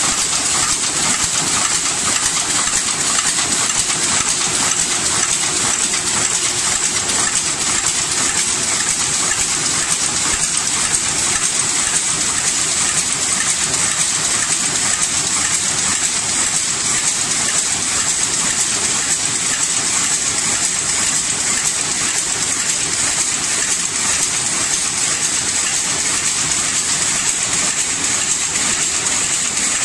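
Automatic tin-can seam welding line running: a steady, dense hiss with a metallic clatter and a strong high-pitched band, without pause.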